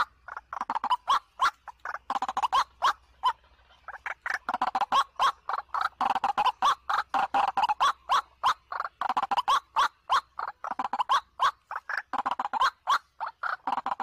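White-breasted waterhen (ruwak-ruwak) calling: a rapid run of short, sharp call notes, about four a second, broken by a couple of brief pauses.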